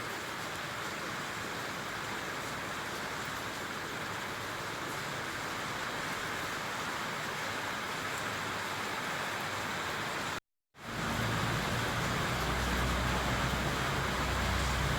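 Steady rain falling, an even hiss. About two-thirds of the way through the sound cuts out for a split second, and after it a low rumble rises under the rain.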